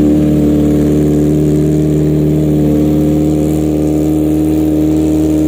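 Kawasaki ZX25R's 250 cc inline-four idling steadily through an R9 full titanium exhaust system while it warms up, its pitch holding level.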